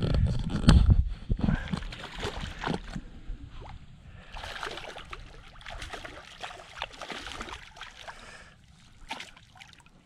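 A hooked bass thrashing and splashing at the surface of shallow water as it is drawn in, in irregular bursts. A loud low rumble with knocks comes in the first second or two.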